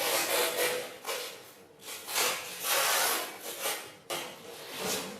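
Repeated rasping strokes of hand work on a surface, about eight uneven strokes over a few seconds.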